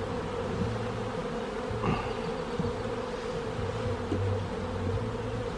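A colony of honey bees buzzing in a steady hum from the opened hive.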